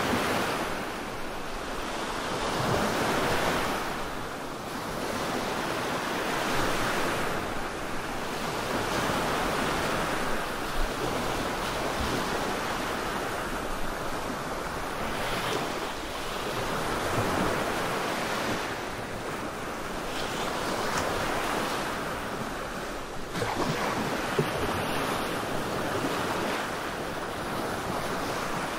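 Black-noise sleep track: a steady rushing like ocean surf that swells and eases every few seconds.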